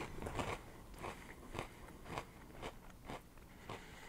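A person chewing a mouthful of frosted oat and marshmallow cereal in milk: soft crunches about twice a second.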